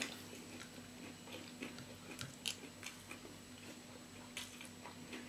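Faint chewing and mouth sounds of people eating, with scattered soft clicks of a fork and spoon against a bowl.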